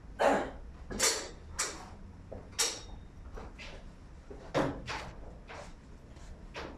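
Irregular sharp plastic-and-metal clacks and knocks of LED video-wall display modules being handled and fitted into their cabinets, about eight in all, the loudest near the start and one about a second in.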